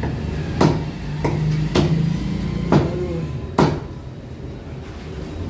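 Meat cleaver chopping chicken into pieces on a wooden log chopping block: five sharp, irregularly spaced chops over the first four seconds.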